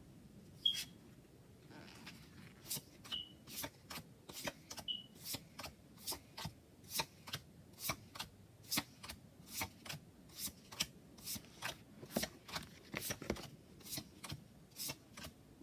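Tarot cards being flipped one after another, each card giving a short crisp snap, about two to three a second.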